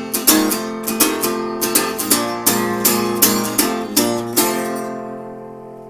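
Acoustic guitar strumming steadily, closing on a final chord about four and a half seconds in that rings on and fades away.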